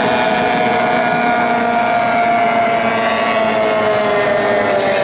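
AX hydroplane racing outboard engines at full throttle, a high steady whine whose pitch falls slowly as the boats pass.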